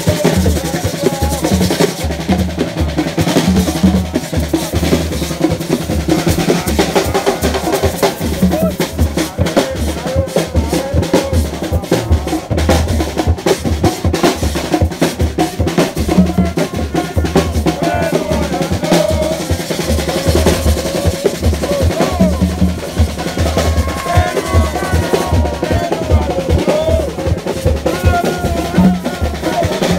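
Rara band percussion: a pair of small twin drums and a snare played with sticks, over a deep drum beat, in a fast, steady, dense rhythm of sharp hits.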